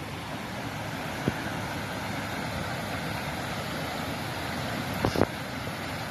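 Shallow floodwater rushing across rough ground and spilling down stepped concrete terraces, a steady rushing noise. There is a sharp click about a second in and two more about five seconds in.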